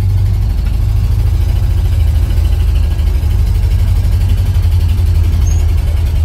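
The 1976 Ford F-250's engine running steadily at a slow crawl, heard from inside the cab as a low, even drone.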